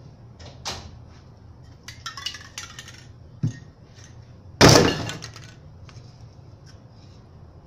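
Hard objects being handled: several clicks and clinks, a knock, then one loud clattering crash near the middle that rings briefly.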